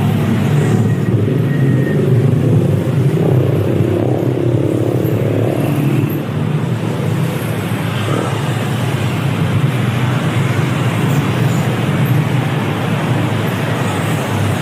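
City street traffic noise: a steady rumble of passing cars and other motor vehicles, with one vehicle's engine swelling louder and then fading between about three and six seconds in.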